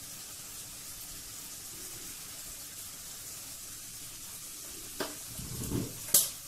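Rice and tomato masala gravy simmering in an open pressure cooker, a steady sizzling hiss. Near the end a click and brief handling noise, then one sharp knock about six seconds in, the loudest sound.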